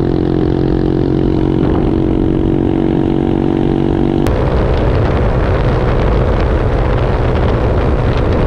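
Honda Monkey's single-cylinder engine running steadily at highway speed, with wind on the microphone. A little over four seconds in the sound changes abruptly to a rougher mix with more wind and less engine tone.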